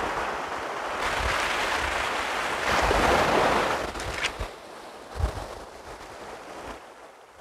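Sea surf breaking and washing up the beach, swelling loudest about three seconds in as a wave comes in, then dying down. Gusts of wind buffet the microphone with a few low thumps in the second half.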